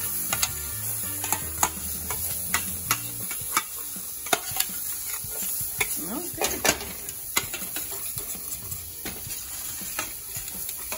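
Metal spoon stirring and scraping turmeric and curry spices frying in oil in a stainless steel pan: a steady sizzle with irregular sharp clinks of the spoon against the pan.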